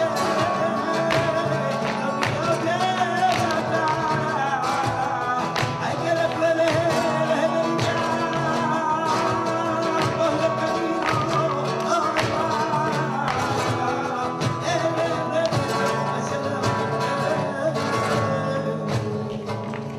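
Live flamenco music in the fandangos de Huelva style. A singer holds long, wavering, ornamented lines over flamenco guitar, with frequent sharp percussive hits throughout.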